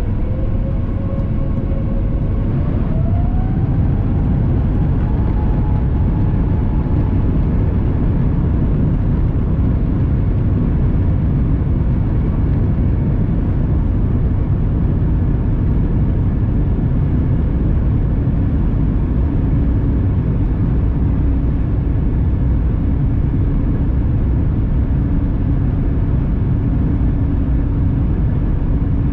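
Airbus A350-1000's Rolls-Royce Trent XWB engines, heard from the cabin, spooling up for takeoff. A whine rises in pitch about three seconds in, then settles into a loud, steady jet roar with a deep rumble as the aircraft accelerates. A second steady lower tone joins in about two-thirds of the way through.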